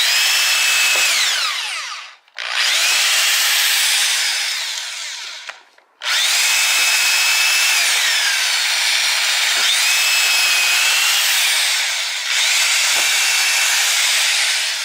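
Rotary hammer drill with a chuck adapter and a regular twist bit drilling into firewood. It runs in several long bursts, its motor whine falling away each time it is let off, with short stops about two and five and a half seconds in and a brief dip near the end.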